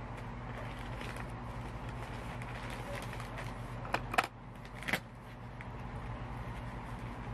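Plastic parcel packaging being handled and unwrapped: a soft plastic mailer and foam packing wrap rustling, with three sharp crackles about four and five seconds in. A steady low hum runs underneath.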